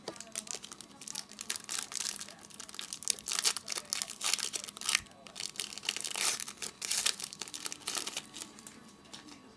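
Foil trading-card pack being torn open and its wrapper crinkled in the hands: a dense run of sharp crackling with a short lull about five seconds in, dying away near the end.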